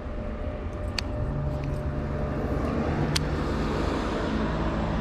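A steady low motor hum that strengthens about a second in, with two sharp clicks.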